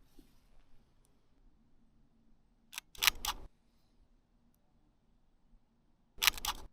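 Mechanical shutter of a Fujifilm X-T1 mirrorless camera firing, in two short clusters of sharp clicks about three seconds apart, the first a little under three seconds in and the second about six seconds in.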